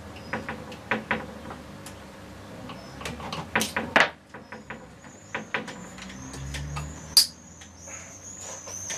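Light clicks and knocks of hands handling a Retay T20 air rifle's scope and mounts, with a cluster of louder clacks around three to four seconds in and one sharp click about seven seconds in.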